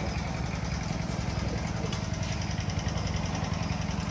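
An engine idling steadily: a low, even, pulsing hum.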